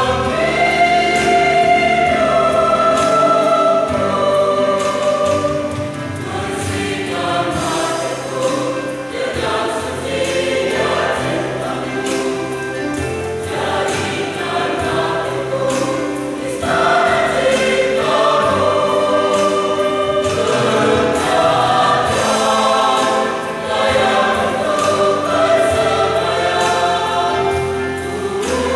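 Church choir singing a Christian song together.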